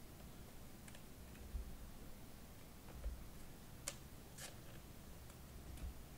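Quiet room tone with a low hum and a few soft, scattered clicks, the clearest about four seconds in.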